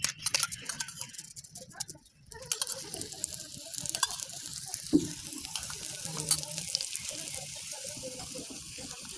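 Oil sizzling under a paneer paratha frying on a hot iron tawa: a few light clicks of a steel spoon and utensils in the first two seconds, then a steady sizzle with scattered crackles. A sharp knock about five seconds in.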